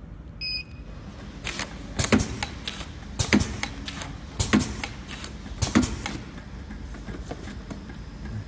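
A touchscreen control panel beeps once as the labeling machine's conveyor is started, and a thin high whine comes in with it. Then come groups of sharp clacks a little over a second apart as cardboard boxes are fed along the conveyor and through the label applicator. The clacks stop about six seconds in.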